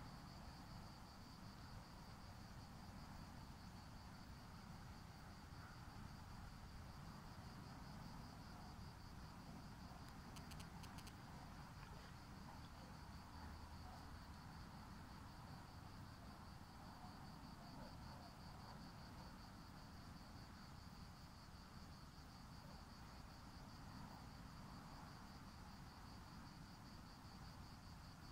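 Faint, steady high-pitched insect trill, a continuous pulsing chorus. A brief run of faint clicks comes about ten seconds in.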